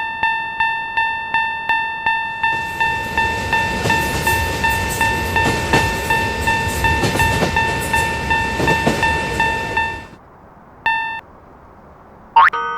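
Railroad crossing warning bell ringing in a steady kan-kan of about three strikes a second. From about two seconds in, the noise of a train passing is added, and both stop suddenly about ten seconds in. Near the end, a run of quick falling-pitch cartoon sound effects begins.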